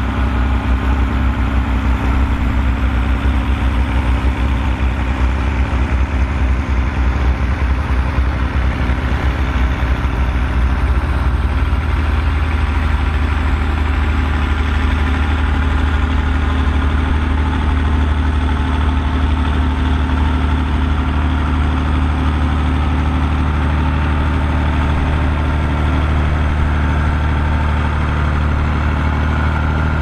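Diesel engines of Volvo BM tractors running steadily under load as they pull ploughs through the soil, several tractors close by.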